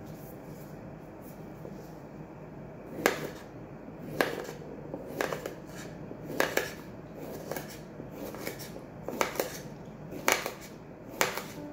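Kitchen knife slicing a cucumber on a wooden cutting board: from about three seconds in, each cut ends in a sharp knock of the blade on the board, about one a second.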